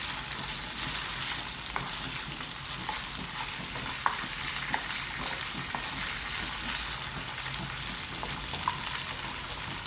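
Marinated boneless chicken pieces shallow-frying in hot oil in a non-stick pan, sizzling steadily. A wooden spatula gives a few light taps against the pan as the pieces are moved and turned.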